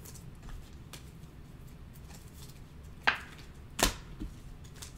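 Trading cards being handled on a table: faint light ticks, then two sharp snaps about three seconds in, less than a second apart.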